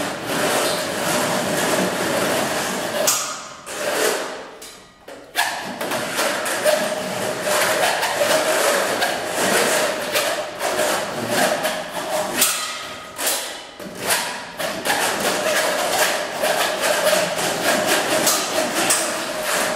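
Live percussion on metal instruments: a dense, noisy wash of rapid hits over a steady ringing tone, dipping briefly about four seconds in and again about thirteen seconds in.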